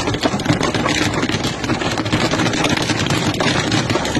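Heavy rain and hail pelting a car's roof and windshield, heard from inside the car: a dense, unbroken clatter of many small hits over a steady low rumble of the moving car.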